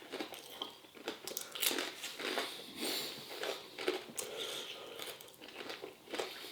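A person chewing a mouthful of beer-battered onion ring, with soft irregular crunches of the fried batter.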